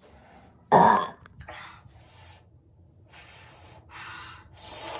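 A man coughs hard once about a second in, then breathes out sharply through his open mouth again and again, about five hissing breaths, as he pants against a mouth burning from extremely hot chicken.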